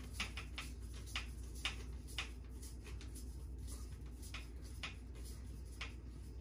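Light, sharp clicks about twice a second, uneven in spacing, as the shotgun's magazine tube is unscrewed by hand. A low steady hum runs underneath.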